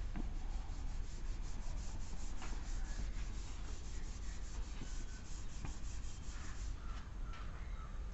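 Chalkboard duster rubbed quickly back and forth across a chalkboard, wiping off chalk writing in a rapid run of scratchy strokes that stops shortly before the end.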